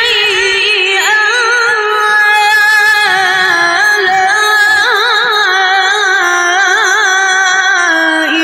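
A Quran reciter's voice held on a long, very high melismatic phrase in the upper register, the pitch wavering in quick ornaments and dipping slightly near the end.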